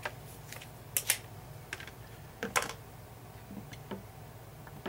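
Scattered sharp clicks and knocks from a handheld digital multimeter and its test probes being handled and lifted off a wooden layout board, with the loudest pair about a second in.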